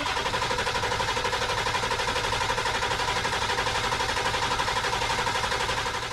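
Ford F-250's 7.3 Powerstroke V8 diesel cranking on the starter in a fast, even rhythm without catching, fading near the end. The engine is not building enough high-pressure oil to fire the injectors, topping out around 210 PSI, which the owner takes for a massive leak somewhere in the oiling system.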